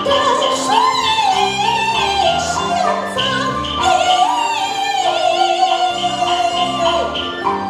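Taiwanese opera (gezaixi) singing: a voice holds long, wavering melodic phrases over the accompanying ensemble's instruments.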